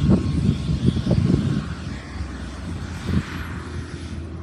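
Agusta A109 helicopter running on the ground after landing: steady turbine and rotor noise with a very high whine slowly falling in pitch. Irregular low gusts of wind rumble on the microphone, heavier in the first half.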